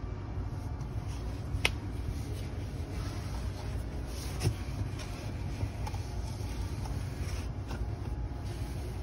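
Rubbing and shuffling of a person shifting about in a cramped hiding spot, with two sharp knocks, one about one and a half seconds in and one about four and a half seconds in, over a steady low rumble.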